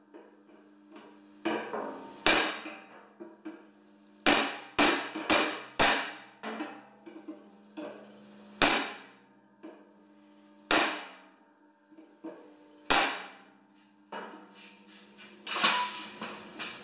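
Hammer blows driving a punch held against the steel auger housing of a John Deere TRS 24 snowblower, to straighten bent metal. About eight sharp, irregularly spaced strikes come through, with a quick run of four about four to six seconds in, and the housing rings after each blow.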